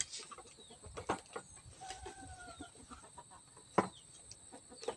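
A few sharp knocks of tin cans being set down on a table, the loudest just at the start and again near the end. A chicken clucks in the background about two seconds in, with faint bird chirps.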